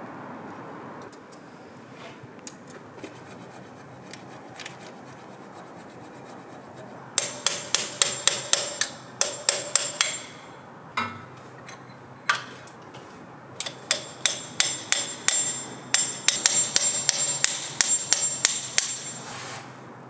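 Quick runs of light hammer blows on metal, about three a second, each with a short ringing tone: tapping with a metal bar at the spigot bush in the centre of a Land Rover flywheel. Two runs, one starting about seven seconds in and a longer one near the end, with single blows between.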